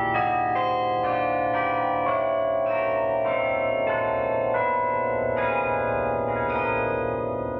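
Carillon bells playing a slow melody, a new bell struck about every half second to second, each ringing on under the next, the sound easing off a little near the end.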